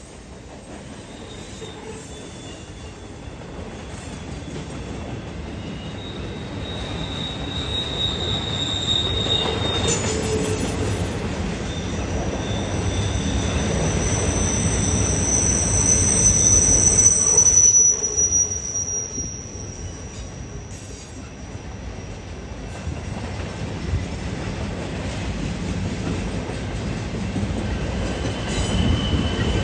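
Empty racked flatcars of a rail train rolling past on a curve. The wheels keep up a steady rumble on the track, and high, steady wheel-flange squeals come and go, the loudest in the middle.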